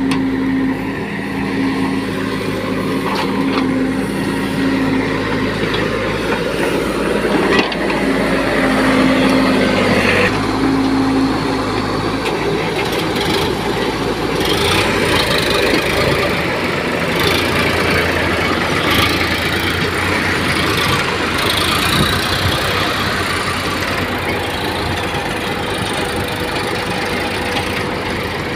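Diesel engines of a Case 770 backhoe loader and a Sonalika tractor, running steadily while the backhoe digs and loads soil. The engine sound turns rougher about twelve seconds in, and the tractor pulls away with its loaded trolley near the end.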